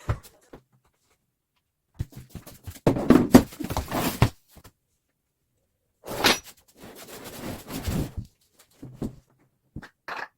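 Knocks, clatter and rattling from handling furniture parts while assembling a bed frame, in two busy bursts with a few single knocks around them.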